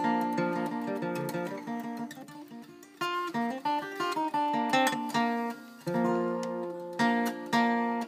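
A 1965 Gibson Country Western flat-top acoustic guitar, capoed, playing a picked melody with ringing notes, easing off briefly about three seconds in and again just before six seconds at the ends of phrases.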